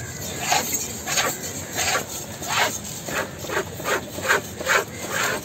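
Large fish-cutting knife scraping and slicing through strips of fish flesh on a wooden chopping block, in a run of short rasping strokes about two a second.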